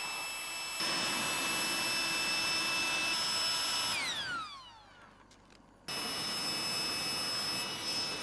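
Cordless handheld electric blower running with a high, steady whine, blowing air onto charcoal briquettes to get them burning. It is switched off about four seconds in, its whine falling away as the fan spins down, and is switched on again about six seconds in.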